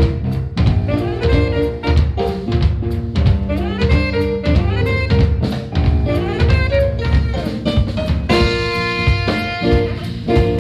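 Jazz quartet playing live: saxophone over drum kit, bass guitar and keyboards. About eight seconds in, a long held note with a bright, full tone rings over the band.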